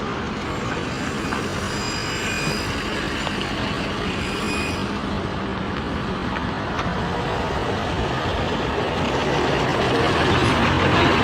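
Road traffic going by, a steady rush of vehicle noise that grows louder near the end as a vehicle comes closer.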